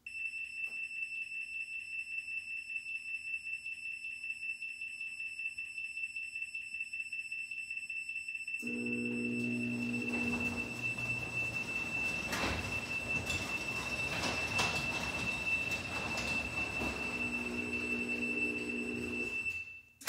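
A MyQ-enabled Chamberlain LiftMaster garage door opener closing by remote command. Its warning beeper gives a rapid, pulsing high beep for about nine seconds before the door moves, as a remotely started close does. The opener's motor then starts with a steady hum and the sectional door rattles down with the beeper still going, and it stops just before a sharp thud at the very end.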